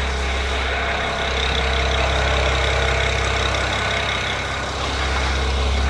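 BMW N54 twin-turbo inline-six idling steadily.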